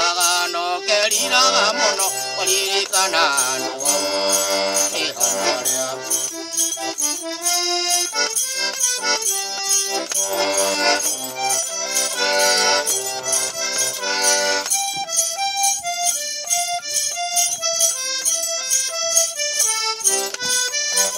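Kikuyu mwomboko tune played on a small diatonic button accordion, melody over bass chords, with a steady fast ticking beat running through. About a third of the way in the full chords thin to separate melody notes, and in the last third the bass stops and the melody carries on alone.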